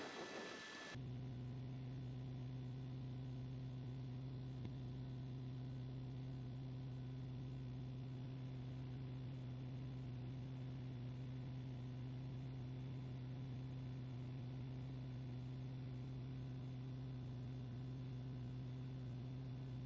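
A steady low hum with an even hiss, starting about a second in and holding constant with no change in pitch or level.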